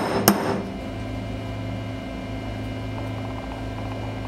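Ball-peen hammer striking a steel pin punch twice in quick succession right at the start, driving the gas-block pin through to break off a burr. Then only a steady electrical hum.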